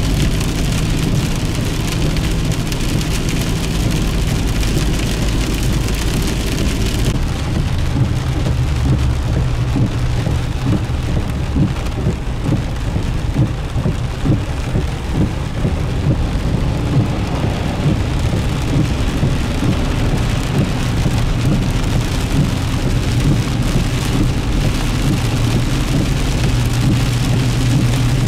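Heavy rain falling on a car's roof and windshield, heard from inside the moving car, with a steady low engine and road hum underneath. About seven seconds in the sound changes abruptly and the high hiss drops away.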